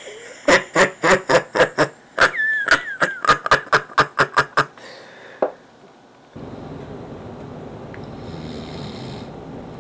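A man laughing loudly in a rapid string of 'ha' bursts, about four a second, with a high squeal in the middle, stopping after about four and a half seconds. After a short lull, a steady low hiss of room and camera noise takes over.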